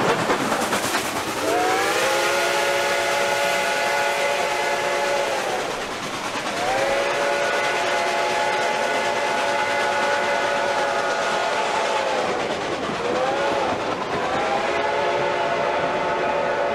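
Reading & Northern 2102 steam locomotive's chime whistle sounding two long blasts, one short and one long, the grade-crossing signal. Each blast is a chord of several notes that sags in pitch as it sounds and closes. Under it, the passenger cars rattle and clatter steadily past.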